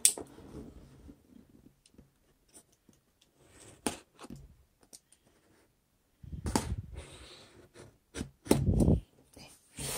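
Small scissors cutting the tape seals on a cardboard LEGO box: scattered clicks and snips, then louder scraping against the cardboard about six and a half seconds in and again near nine seconds.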